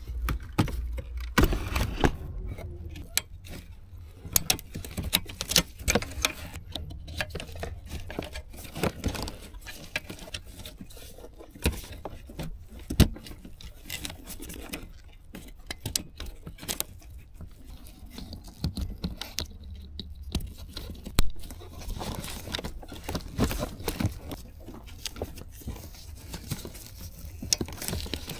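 Irregular clicks, knocks and light rattles of gloved hands handling plastic dash parts and wiring-harness connectors behind a car's head unit.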